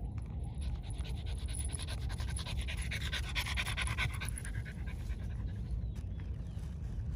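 French bulldog panting close to the microphone in quick, rapid breaths, loudest about halfway through.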